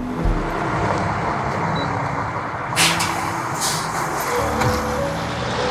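City bus running in traffic: steady engine and road noise, with a couple of short hisses of air around three seconds in.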